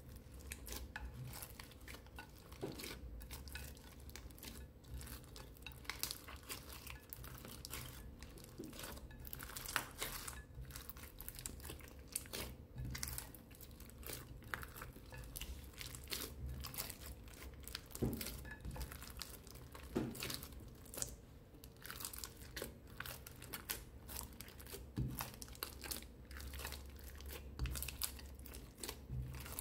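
Hands squishing and kneading fluffy slime packed with candies and sprinkles: a constant run of irregular sticky crackles, pops and small crunches.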